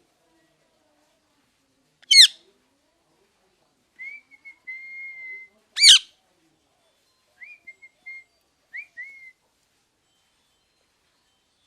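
Pet parrot (mithu) giving two short, sharp, loud screeches about four seconds apart, with softer whistled notes between and after them.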